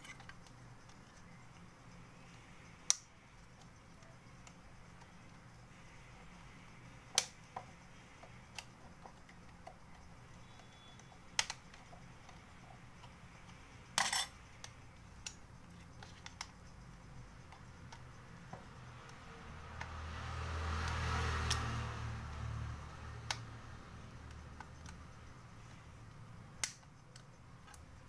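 Sharp plastic clicks and snaps as the clips of a Micromax Q352 phone's plastic housing are pried open with a tool, about half a dozen separate clicks, one of them a quick double. A low rumble swells and fades about two-thirds of the way through.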